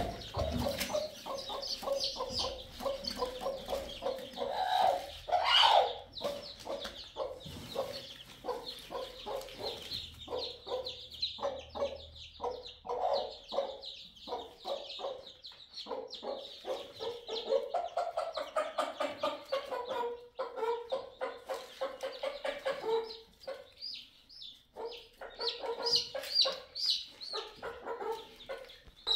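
Newly hatched chicks peeping constantly in a high pitch while a broody hen clucks lower down, with one louder call about five seconds in. A brief flutter of the hen's wings comes right at the start.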